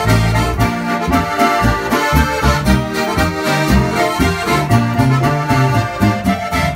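An Oberkrainer-style folk quartet playing a Boarisch: two Steirische harmonikas (diatonic button accordions) carry the tune over guitar and a pulsing electric bass.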